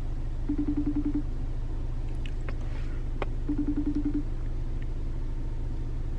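Outgoing phone call ringing: two short, pulsed ringing tones about three seconds apart, over the steady low hum of an idling car.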